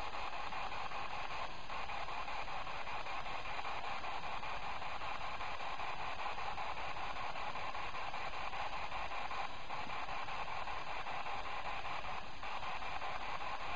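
Steady static hiss, an even noise with no distinct event standing out.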